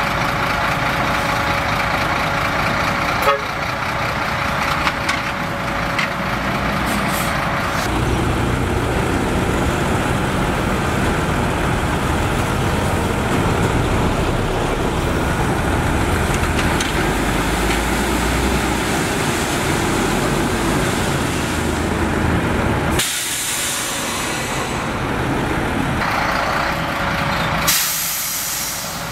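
Heavy truck diesel engines running, with a deeper, heavier low rumble from about eight seconds in. Two bursts of air-brake hiss come near the end.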